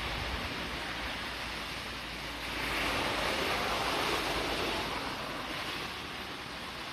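Heavy rain falling steadily as a continuous hiss, swelling louder for a couple of seconds in the middle.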